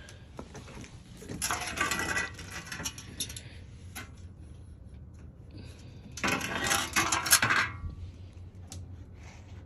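Small metal objects clinking and rattling in two clattering bursts of about a second each, with a few single clicks between them.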